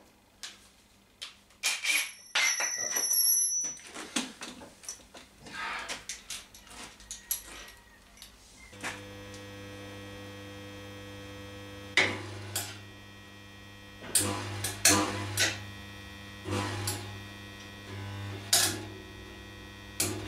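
Metal parts clanking as they are handled and set up in a bench vice, one piece ringing briefly. About nine seconds in, an electric welder switches on with a steady mains hum, and over it come several short bursts of welding a few seconds apart, like tack welds.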